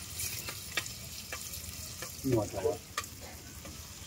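Chicken curry sizzling as it fries in a pan while it is stirred, the spoon clicking against the pan several times. A short vocal sound breaks in a little over two seconds in.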